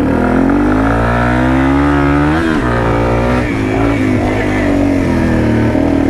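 Yamaha TW200's single-cylinder four-stroke engine under way on a dirt trail. Its revs climb for about a second and a half to a peak about two and a half seconds in, drop sharply, then hold fairly steady.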